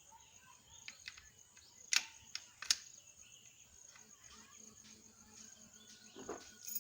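A few sharp, separate metallic clicks and taps from mortice lock parts being handled and fitted together, the loudest about two seconds in and just after.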